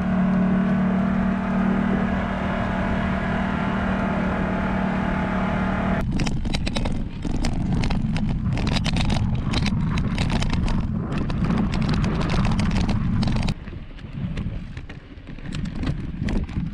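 A side-by-side UTV engine running at a steady speed, heard from on board. About six seconds in it gives way to a mountain bike rolling fast down a rough dirt road, with wind rushing over the microphone and irregular knocks and rattles from the bumps.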